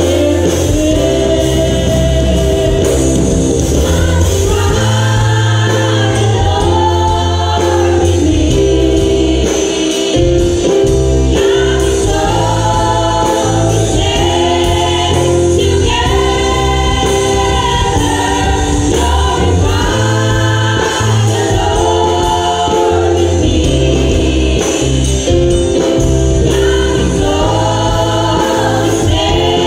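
Women's choir singing a gospel song in full voice over instrumental accompaniment with a steady bass line.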